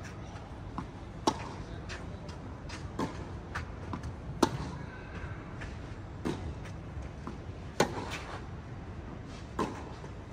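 Tennis rally: the ball struck back and forth by rackets, a sharp hit about every one and a half seconds, alternating louder and fainter strikes.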